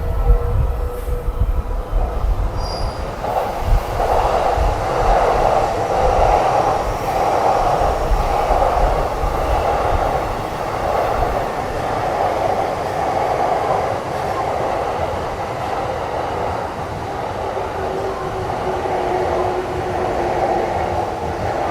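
Electric commuter train running past on the tracks: continuous wheel-and-rail rolling noise that rises and falls in rhythmic pulses, with a low steady whine coming in near the end. Wind rumbles on the microphone at the start.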